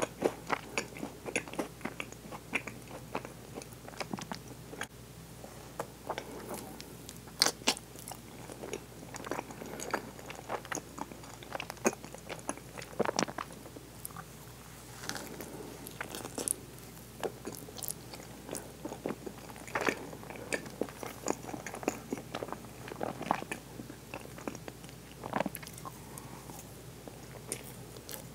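Close-miked chewing and biting of a soft strawberry-and-cream mochi (yukiichigo), with many wet, sticky smacking clicks from the mouth and a few louder bites.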